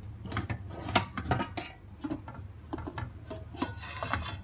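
Stainless steel pressure cooker lid being twisted loose from the rim and lifted off, metal rubbing and scraping on metal, with a few sharp clinks about a second in and a longer scrape near the end. The steam has already been let out, so no hiss.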